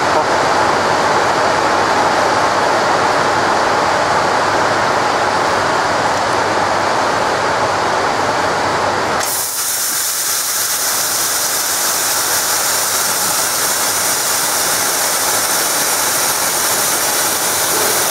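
Fiber laser cutting machine working on 10 mm carbon steel. A steady rushing machine noise gives way abruptly, about nine seconds in, to a loud, bright hiss of the assist-gas jet as the cut starts and throws sparks.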